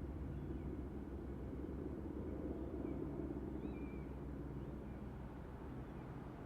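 Low, steady mechanical hum, like a running engine heard at a distance, with a few faint, short high chirps over it.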